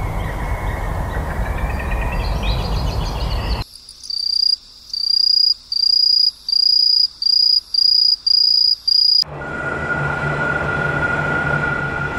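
Layered ambience in three parts, each cut in abruptly. First a steady rushing noise. About four seconds in, quiet with a cricket-like insect chirping in high, even pulses, about two a second. Near nine seconds this gives way to a steady low hum with a thin high whine.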